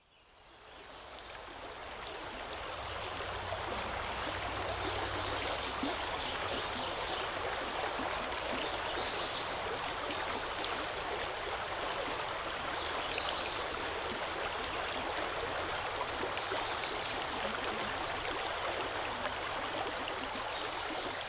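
Shallow creek water rushing steadily over gravel and stones, fading in over the first couple of seconds, with short high chirps every few seconds.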